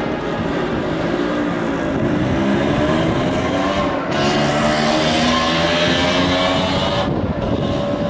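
A large outdoor crowd talking, mixed with a procession band playing held notes.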